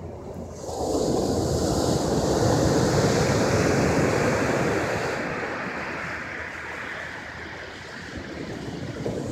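Ocean surf: a wave breaks about a second in and its wash slowly dies away over several seconds, with the next wave coming in near the end.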